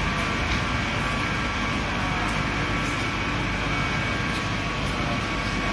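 A London Underground Northern line 1995-stock train standing at the platform with its doors open, its onboard equipment giving a steady hum with a few thin, steady high tones.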